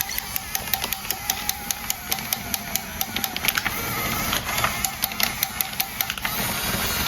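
Steady mechanical clicking, about five clicks a second, over background music.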